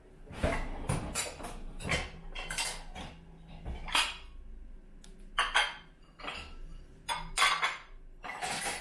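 Ceramic bowls and plates clinking and knocking together as they are lifted out of a dishwasher's lower rack and stacked, an irregular run of sharp clinks.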